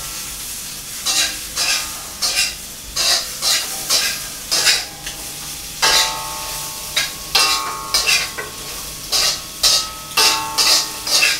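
A metal cooking utensil scraping and knocking against a pan in regular strokes, about two a second, each stroke ringing briefly, while food sizzles in the hot pan.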